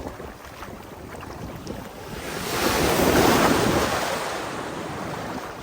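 Heavy surf after a typhoon: a large wave breaks and rushes up the beach. It builds about two seconds in, is loudest around the middle and washes back down. Wind buffets the microphone.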